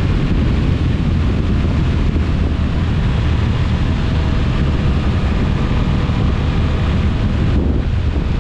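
Steady wind rushing over the microphone of a BMW F900XR motorcycle riding at about 105 km/h on a wet road, with the engine and tyres running underneath. The higher hiss thins out briefly near the end.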